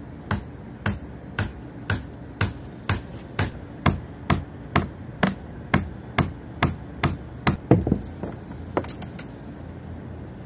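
Steady hammer blows, about two a second, for some eight seconds, then three quick, lighter taps near the end.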